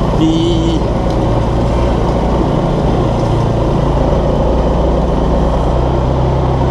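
2014 Linhai Big Horn 400 UTV's single-cylinder engine running steadily as the machine drives along, with a brief squeak near the start.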